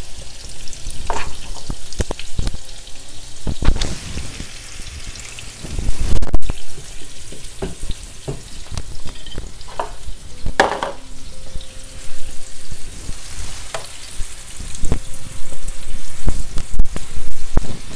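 Lamb steaks sizzling steadily as they sear in hot oil and butter in a frying pan, with irregular knocks and scrapes of a utensil and the pan, one louder clatter about ten seconds in.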